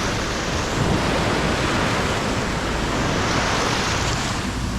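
Sea surf washing in, swelling and easing, with wind buffeting the microphone.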